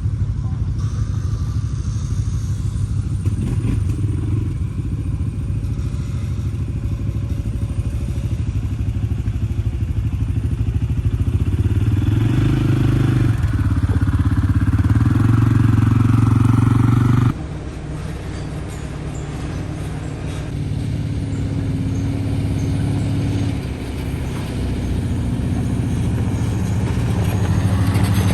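Off-road wrecker's engine running at low speed as it crawls along a rough trail, towing a disabled side-by-side. About two-thirds of the way through the sound drops abruptly and then slowly builds again.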